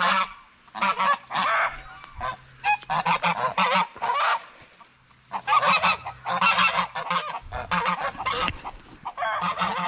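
Domestic geese honking in four bursts of quick, repeated calls with short pauses between.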